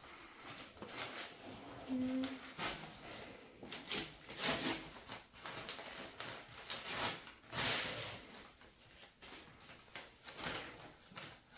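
Irregular rustling and crinkling of a gift T-shirt and its wrapping being handled and unfolded by hand.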